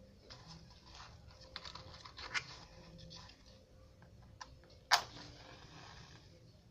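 Small clicks and scrapes of a matchbox being handled, then a match struck about five seconds in: one sharp scrape and a brief hiss as the head flares.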